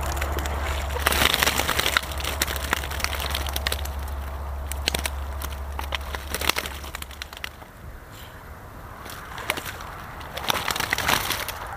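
Water splashing and streaming out of a mesh fish keepnet as it is hauled out of the river onto the bank, with the wet net rustling. Louder stretches come about a second in and again near the end.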